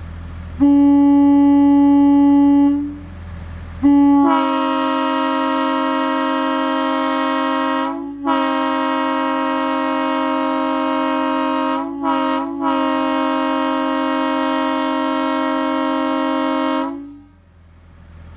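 Nathan M2 locomotive air horn, sounding on bells 1 and 2. A blast of about two seconds comes first, then a long blast of about thirteen seconds on a chord of two close low notes. The long blast breaks off briefly three times before it cuts off near the end.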